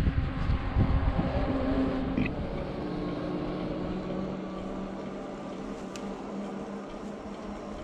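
Electric bike's hub motor whining steadily under wind rush on the microphone and tyre noise on pavement while riding; the wind rumble eases after about two seconds.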